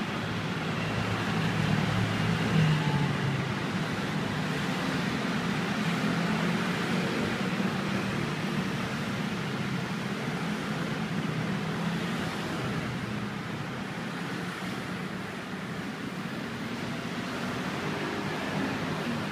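Steady low background rumble and hiss with a low hum, strongest about two seconds in.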